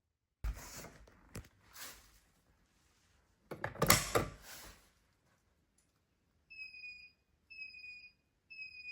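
A few handling knocks and a louder rustling clatter about four seconds in, then about six and a half seconds in a fire alarm sounder starts: a high beep with a slightly falling pitch, about half a second long, repeating once a second.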